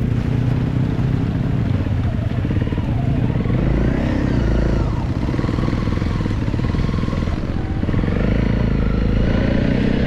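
Dirt bike engine running close to the microphone, its revs rising and falling as it rides over rough ground.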